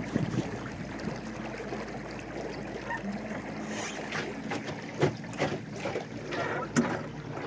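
Small electric boat under way: water rushing and lapping along the hull, with a low steady hum from the 40-lb-thrust Minn Kota trolling motor at 75% power. A couple of sharp knocks come in the second half.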